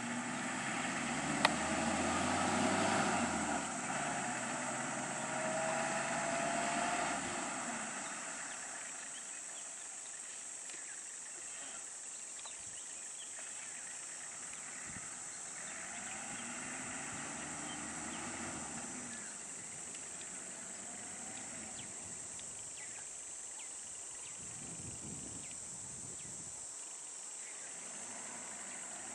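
Vehicle engines idling and running slowly, loudest in the first several seconds, then quieter. A steady high drone of insects runs throughout.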